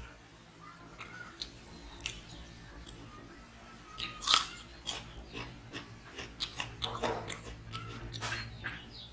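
A person eating rice and chicken curry by hand: a few soft clicks of fingers in the rice, then a loud mouthful taken about four seconds in, followed by a run of chewing and mouth smacks.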